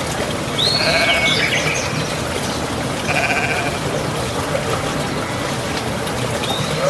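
Sheep bleating twice, each a wavering call: once about a second in and again about three seconds in, over steady outdoor background noise.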